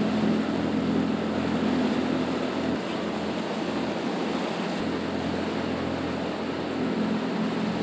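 Motorboat under way at trolling speed: a steady low engine hum over the rush of water in the churning wake.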